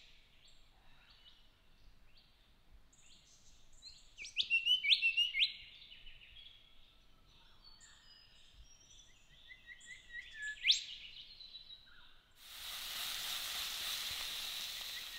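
Bush birds calling, including whistled calls that sweep sharply upward. About twelve seconds in, sausages start sizzling loudly in a steel frying pan.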